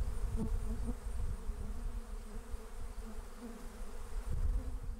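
Dense, steady buzzing of many honeybees flying around a hive entrance: robber bees from a strong colony attacking a small, weak hive in a robbing frenzy.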